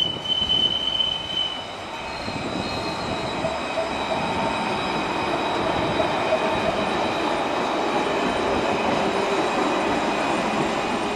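Alstom Citadis 302 light-rail tram running on its rails: a brief high wheel squeal on the curve at the start, then a steady rolling rumble with a high electric whine as it passes close by.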